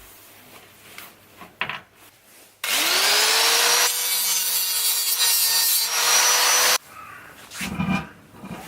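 An electric power tool's motor spins up quickly to a steady high pitch and runs for about four seconds with a loud noisy cutting or grinding sound, then stops abruptly. Light knocks and handling sounds come before and after it.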